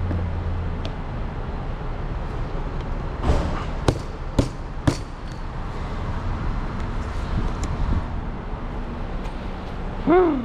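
Hand work on car body parts in a shop: four sharp knocks and clicks in quick succession, over a steady low hum, then a short pitched sound near the end that rises and falls in pitch.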